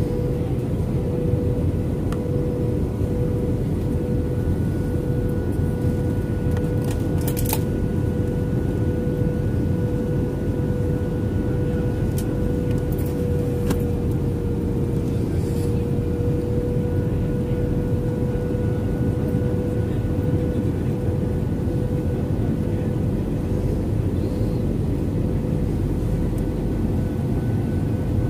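Steady cabin noise inside an Airbus A320-200 airliner on approach: a low rumble of engines and airflow with a constant hum.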